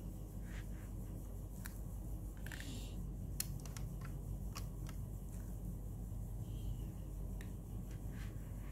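Small sharp clicks and a brief light scrape from a diecast Toyota Camry model car being handled, its door and boot lid clicking on their small hinges, about a dozen clicks in all.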